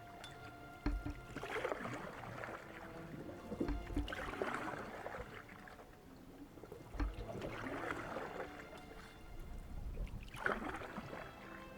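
Canoe paddle strokes in the water, about one every three seconds: each stroke is a splash and swish of water led by a low knock.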